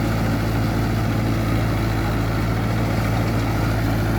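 Tractor engine running steadily under load while ploughing.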